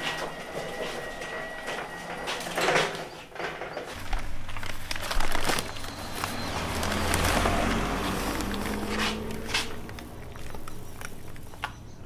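Handling noises: a paper rice sack rustling as hands open it and scoop up brown rice, with a few knocks and a low rumble.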